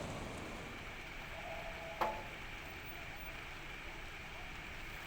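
Steady hiss of water spraying from fire hoses, with a single sharp click about two seconds in.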